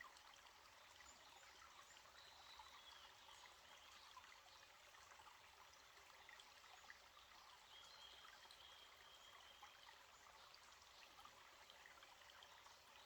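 Faint, steady trickle of a small forest stream. A bird's high, drawn-out call sounds faintly twice over it, about two seconds in and again past the middle.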